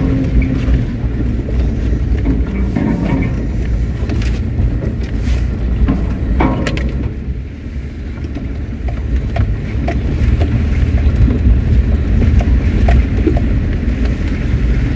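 Land Rover engine running steadily under way, heard from inside the cab, with scattered knocks and rattles as it drives over a rutted, muddy track.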